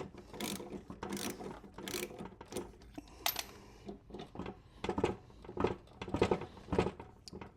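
Ratchet wrench clicking and metal clinking in short irregular strokes as it turns a bearing-separator puller's forcing bolt, drawing a stuck blade adapter down off a lawn mower engine's crankshaft.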